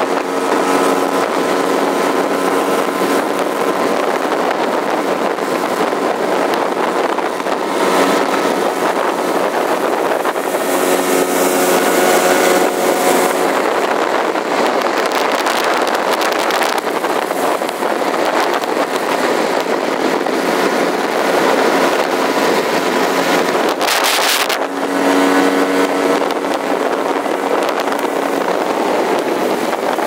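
Motorboat engine running steadily at cruising speed, with a constant rush of wind and water.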